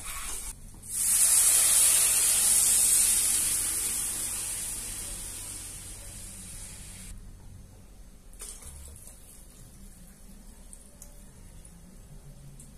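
Water poured into a hot pot on a gas stove: a loud hiss and sizzle that starts about a second in and dies away over several seconds. Quieter pouring and bubbling follow.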